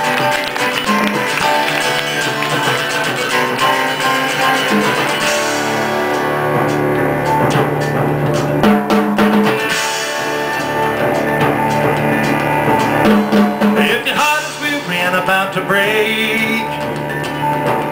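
Live band playing an instrumental break: strummed acoustic guitars under long held low notes from a bowed string instrument.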